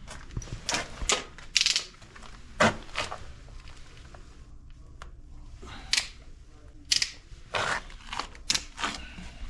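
Irregular clicks, knocks and brief rustles of something being handled, a few of them sharp and loud, over a low steady hum.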